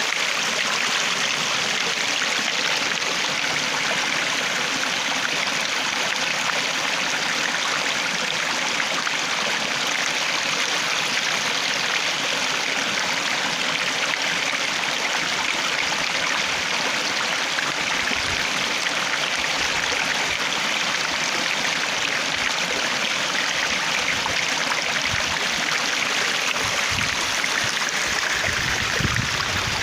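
Water flowing steadily in a stream, an even, continuous rush. Low rumbles come in briefly about two-thirds of the way through and again near the end.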